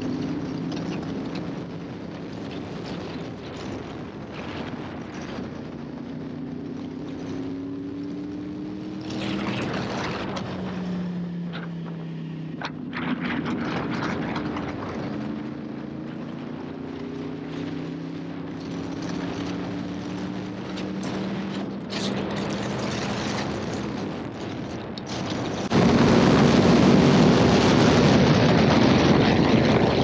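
Inline-four sportbike engine heard from the rider's seat, its pitch climbing and dropping back repeatedly as the throttle is worked through the gears, with wind rushing over the microphone. About four seconds before the end, the engine and wind noise jump sharply louder under hard acceleration.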